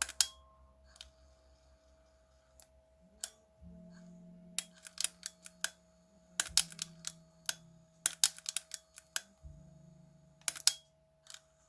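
Quick, sharp clicks and small taps, the densest about halfway through, from handling a cassette Walkman and its small parts during repair. A faint low hum comes in a few seconds in and shifts pitch twice.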